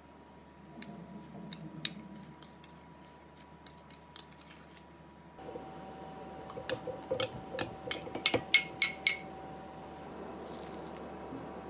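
A metal spoon clinking against a small glass bowl of berries while spooning in sugar, then quick glass-on-glass clinks as the berries are tipped and scraped from the bowl into a tall glass, the last few louder, with a short ring.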